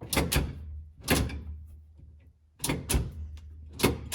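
Go-kart's blue motor-reversing toggle switch being flicked back and forth: about six firm, sharp clicks, some in quick pairs, over a low steady hum.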